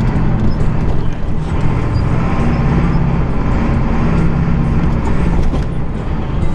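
Ford F-250's 7.3 L Powerstroke turbo-diesel V8 running as the truck drives over snow, a steady low drone with road noise and scattered light ticks.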